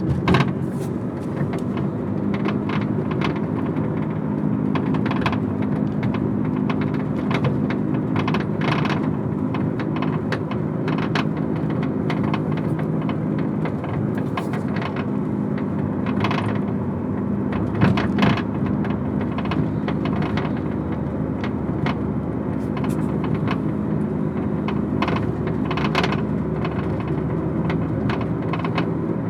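Irregular rattling and clicking from the rear of a 2002 Honda Accord EX, over the steady drone of the running car. It is an unidentified rattle that the owner is trying to track down, with a few sharper knocks near the start and about halfway through.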